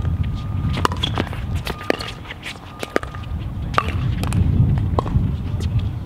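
Pickleball paddles striking a plastic ball in a quick rally: a string of sharp pocks, roughly one a second, over a steady low rumble.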